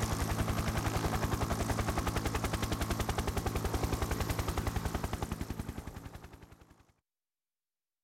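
A long burst of machine-gun fire, played as the left-surround channel test: rapid shots at about ten a second, fading over the last couple of seconds and stopping abruptly about seven seconds in.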